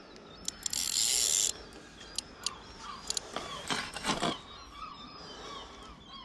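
Shimano Stradic spinning reel's drag buzzing for about a second as a hooked mullet takes line, then a few sharp clicks and knocks from the tackle.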